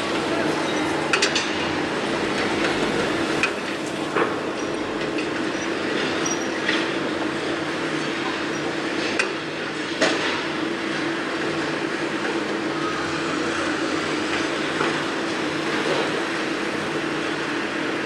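Construction site noise: machinery running steadily with a constant low hum, with sharp knocks and clanks scattered every few seconds.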